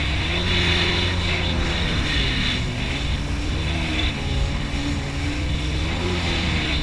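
Personal watercraft engine running at speed, its pitch rising and falling with the throttle, over the rush of spray and wind.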